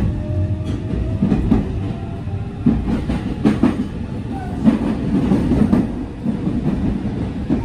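Electric local commuter train running, heard from inside the car: a steady low rumble, with about ten irregular sharp clacks of the wheels over the track joints as the train clears the station.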